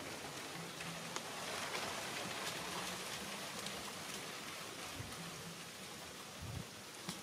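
Light clicks and rustling from hands fitting a wire trigger into the base of a cardboard-box bird trap, over a steady faint hiss.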